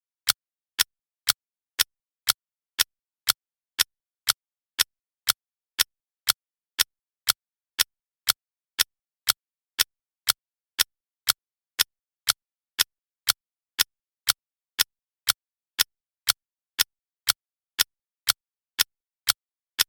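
Clock ticking steadily at two crisp ticks a second, the even ticks of a countdown timer, with silence between them.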